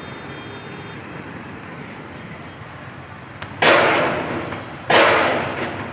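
Two gunshots about a second and a half apart, loud and sudden, each echoing off the surrounding buildings for about a second, over steady street background.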